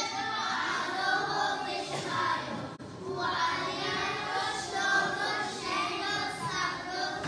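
Children's choir singing, starting right at the opening.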